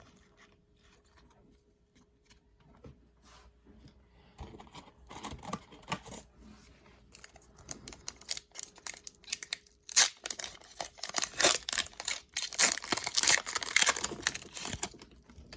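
A trading card pack's foil wrapper crinkling and tearing open, starting softly about four seconds in and getting louder in the second half, with many small crackles.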